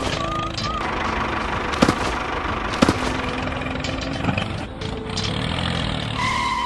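A small engine running steadily, with a few sharp clicks over it.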